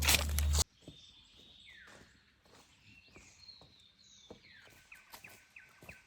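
A loud rushing noise with a low hum cuts off abruptly about half a second in. Small birds then call in a forest: a few short falling chirps, and from near the end a rapid run of repeated calls, about five a second. Faint scattered crackles run under the calls.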